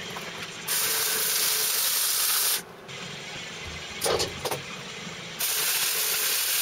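MIG welding arc crackling as casters are welded onto a steel dolly frame: two bursts of about two seconds each, the second starting about five seconds in, with a few light clicks in the gap between them.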